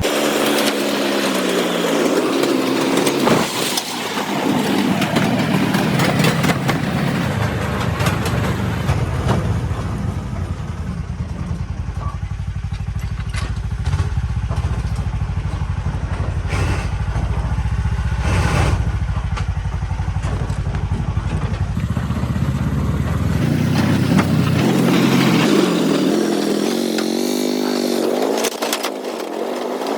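A motor vehicle's engine running under way, its pitch rising and falling as it revs near the start and again near the end, with a heavy rough rumble in between.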